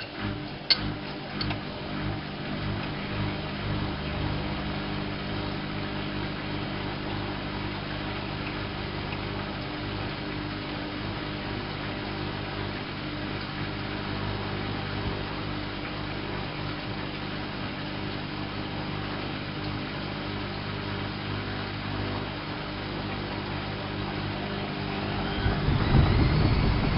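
Whirlpool AWO 5346 washing machine running with a steady motor hum and a few clicks in the first couple of seconds. About 25 seconds in it gets louder, with a rising whine as the drum speeds up.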